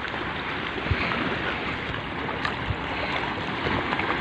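Steady rushing noise of wind and water by a rocky breakwater, with a few dull low thumps.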